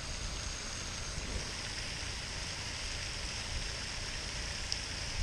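Steady hiss of falling water from a pond fountain aerator's spray, with a low rumble underneath.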